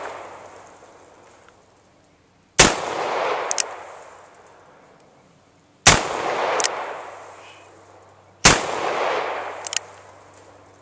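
Smith & Wesson Model 610 10mm revolver with a six-inch barrel firing light CCI Blazer aluminum-cased 10mm loads. There are three shots about three seconds apart, and each loud crack is followed by a long fading rumble.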